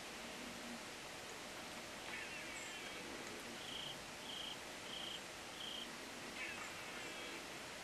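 Outdoor ambience: a steady background hiss with birds calling over it. There are two falling, trilled calls, one about two seconds in and one near the end, and between them a run of four short, evenly spaced notes.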